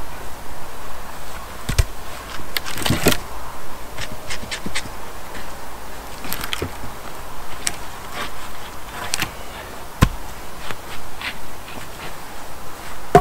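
Wooden poles knocking and scraping as they are handled and set down, with scattered clicks and a few sharper knocks about two, three and ten seconds in.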